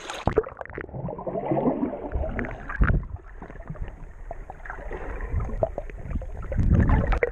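Water sloshing and splashing against an action camera held at the water's surface while swimming. The sound is dull and muffled, with irregular knocks and thumps.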